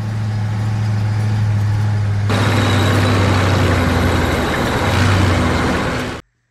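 Tank engine sound effect: a steady low engine drone, joined about two seconds in by a louder rushing noise, cutting off abruptly near the end.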